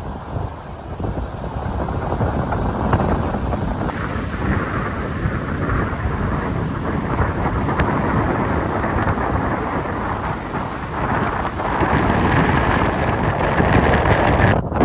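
Strong wind buffeting the microphone in gusts, a deep rumbling noise that swells and eases and grows louder toward the end.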